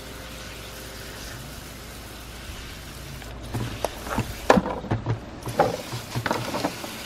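Garden hose spray nozzle hissing onto potatoes in a plastic crate. From about halfway, irregular knocks and clatter as the potatoes are turned by hand, bumping each other and the crate.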